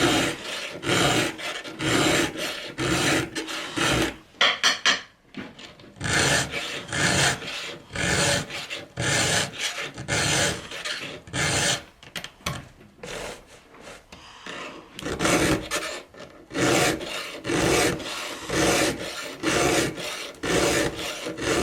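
Round file being stroked by hand across chainsaw chain cutters to sharpen them: short rasping strokes, about one a second. The strokes turn fainter for a few seconds about halfway through.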